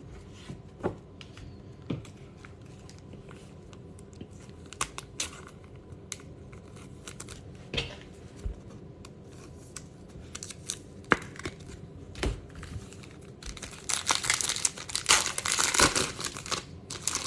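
Trading cards and plastic card holders being handled, with scattered light clicks and taps. Near the end comes a few seconds of crinkling and tearing as a baseball card pack wrapper is torn open.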